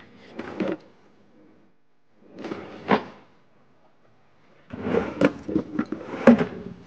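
Kitchen utensils clattering and knocking in a drawer as someone rummages for a pastry brush: a brief rattle, then a sharper knock about three seconds in, then a longer stretch of clattering near the end.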